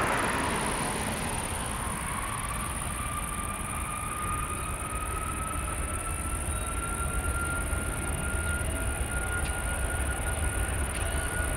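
Airbus A330 Voyager tanker's Rolls-Royce Trent 700 turbofans at taxi power: a steady low rumble under a high whine that slowly rises in pitch, with a fainter whine above it. A rushing hiss fades over the first couple of seconds.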